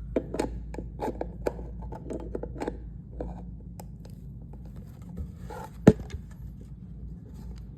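Small clicks, knocks and scrapes of hands working on a wall clock's movement and hands while taking them off, with one loud sharp click a little before six seconds in.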